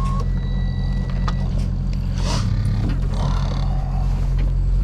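An engine idling steadily, with a constant low hum, and scattered clicks and handling knocks over it.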